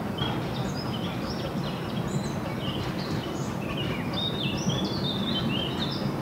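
Small birds chirping in quick high notes over the steady low rumble of a narrow-gauge train running on the line.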